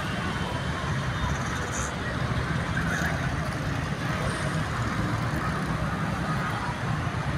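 Steady low rumble of a moving road vehicle, with no distinct events.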